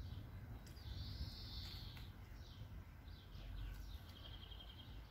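Small songbirds calling in a garden: a few separate whistled notes, one arching up and down, some sliding down, and a short rapid trill about four seconds in, over a faint low rumble.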